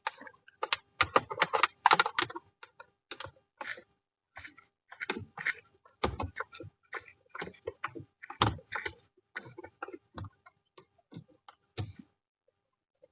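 Irregular clicks, taps and light knocks of a screwdriver working the screws and plastic trim of a car's centre-console climate-control panel.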